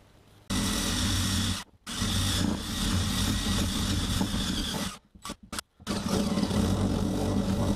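DeWalt cordless drill running with its attachment against a rusty axe head, scrubbing off rust and scale. It starts about half a second in, cuts out briefly just before two seconds, stutters on and off around five seconds, then runs steadily.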